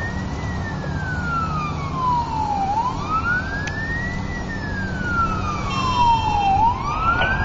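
Fire rescue truck's siren on wail, gliding up quickly and falling more slowly, about once every four seconds, over the truck's steady engine drone.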